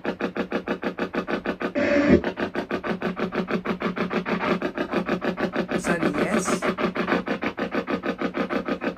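Spirit box sweeping through radio frequencies: rapid, evenly chopped bursts of static and radio fragments, about seven a second, with a louder burst about two seconds in.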